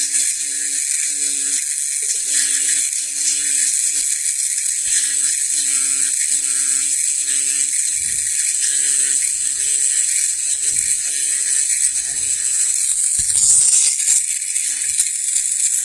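Electric engraving machine running and cutting into the work, a steady high hiss over a low motor hum that comes and goes about twice a second as the tip is worked.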